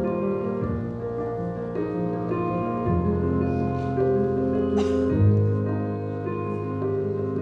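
Slow, gentle instrumental music with piano: held notes over a bass line that shifts every couple of seconds. A brief noise cuts through it about five seconds in.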